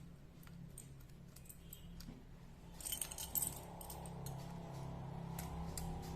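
Metal disc-brake lock and its keys clicking and rattling as it is worked open by hand, with a burst of clicks about three seconds in. A steady low hum runs underneath.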